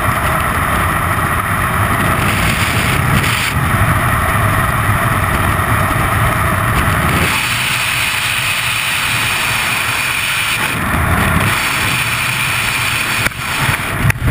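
Freefall wind rushing and buffeting over a helmet-mounted camera's microphone as a skydiver falls. The rush shifts in tone a few times and breaks up near the end as the parachute deploys.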